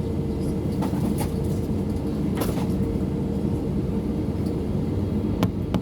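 Airbus A320 cabin noise: a steady low rumble with a faint even hum, broken by a few short light clicks.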